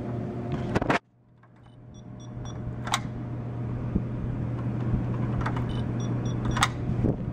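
Hotel key-card door lock beeping: a run of about three quick high beeps about two seconds in and another near the end, with sharp clicks from the card going into the slot and the handle being tried in between. The card is being rejected. A steady low hum lies underneath.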